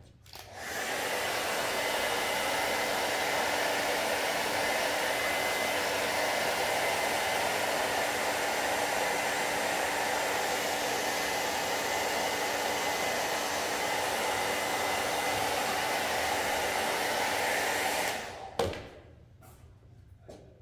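Handheld hair dryer blowing steadily over freshly printed screen-printing ink to dry it. It switches on about half a second in and cuts off a couple of seconds before the end, followed by a single knock as it is set down.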